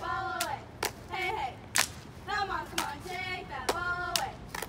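A group of young women chanting a cheer in unison, punctuated by sharp, rhythmic hand claps.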